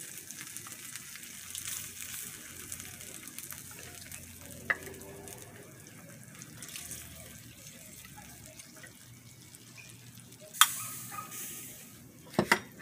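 Ketchup and onion sauce sizzling in a small frying pan, a steady hiss that slowly dies down. A sharp knock about ten seconds in is the loudest sound, with a click earlier and a few more clicks near the end.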